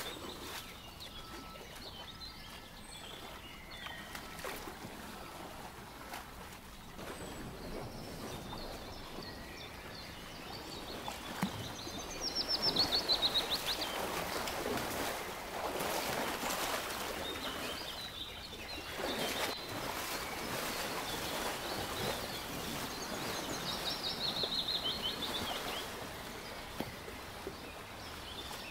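Wild birds chirping over a steady outdoor background hiss, with a quick trill that falls in pitch about twelve seconds in and another near twenty-four seconds.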